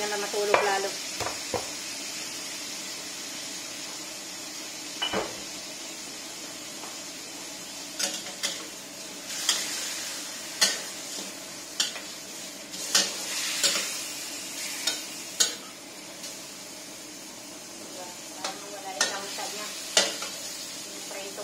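Fish pieces sizzling in oil in a steel wok, with a metal spatula scraping and knocking against the pan as they are stirred. The spatula strikes come in clusters, mostly in the middle and again near the end.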